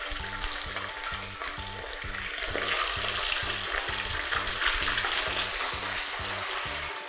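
Snakeskin gourami fish deep-frying in a pan of hot oil: a steady, loud sizzle that grows louder about two and a half seconds in. Faint background music with a steady low beat plays underneath.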